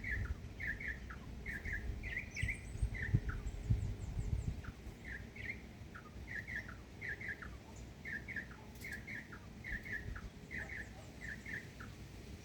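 A bird calling over and over in short chirps, often in quick pairs, about two a second, over a low rumble.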